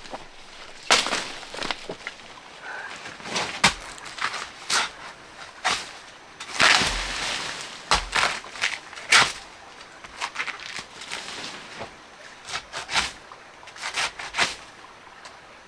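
A series of irregular knocks and rustles, about a dozen in all, with a longer rustling scrape about seven seconds in.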